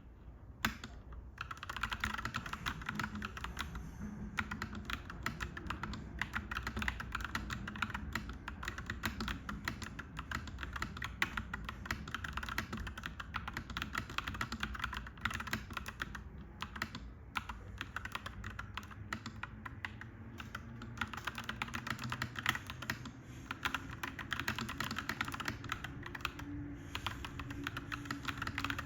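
Fast, continuous typing on a clacky mechanical keyboard, dense key clicks with a few brief pauses, over a low steady rumble.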